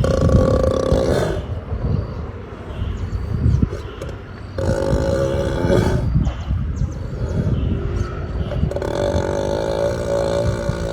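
An ox snoring in a deep sleep: three long, drawn-out snores with a steady droning pitch, one at the start, one about four and a half seconds in and one from about nine seconds on, with low, rough breathing between them.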